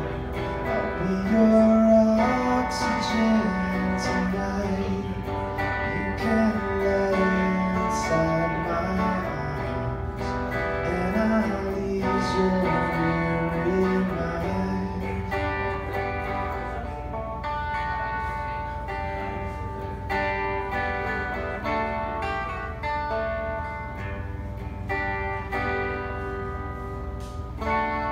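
Live song on an electric guitar through a small amp, with a man singing: a bending melody line over the chords in the first half, then steadier struck chords.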